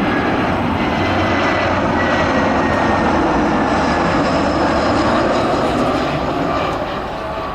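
Jet airliner's engines going past, a loud steady rush with a faint high whine that slowly drops in pitch, easing off near the end.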